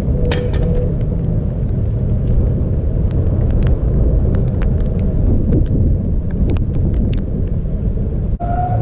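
Wind buffeting the microphone: a loud, steady low rumble with scattered sharp ticks. It breaks off briefly near the end, and a faint pitched tone begins.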